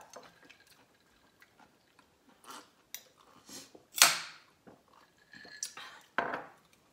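Mouth sounds of someone eating: chewing, with a loud sip from a glass of orange juice about four seconds in and another loud noisy sound near the end.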